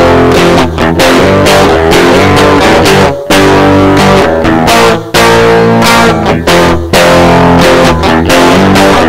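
Electric guitar strumming loud chords, played into an iPod through an iRig interface and processed by a real-time effects app, with short breaks between phrases.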